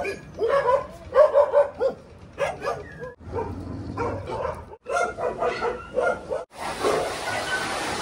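Several dogs barking, yipping and whining in short broken calls, heard in a few clips joined by abrupt cuts. A steady hiss takes over for about the last second and a half.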